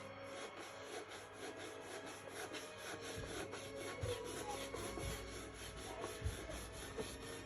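Rhythmic scrubbing on a motorcycle's plastic cover, in quick back-and-forth strokes of about four a second.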